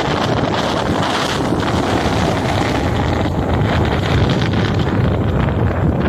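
Rough sea surf washing in steadily, with strong wind rushing and buffeting the microphone.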